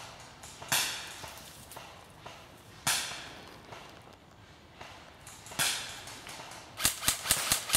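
Airsoft rifle shots: single sharp cracks about one, three and five and a half seconds in, then a fast string of about eight shots near the end.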